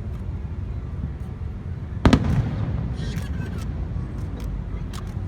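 Fireworks going off: one loud bang about two seconds in, then scattered fainter sharp pops, over a steady low rumble.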